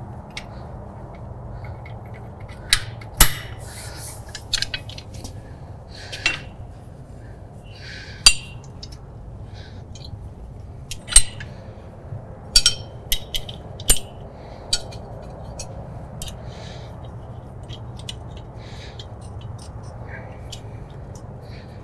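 Scattered sharp metallic clinks and clanks, a dozen or so, from hand tools and steel hitch parts: a ratchet and breaker bar knocking against a tractor's three-point hitch as a telescoping draft link is fitted. A low steady hum runs underneath.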